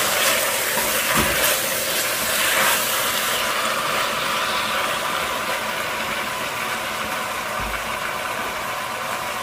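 Raw chicken and pork pieces sizzling in hot oil in an enameled cast-iron Dutch oven as they are stirred with a silicone spatula; the sizzle is stronger for the first few seconds, then settles to a softer steady hiss. A steady hum runs underneath, with a low thump about a second in and another near the end.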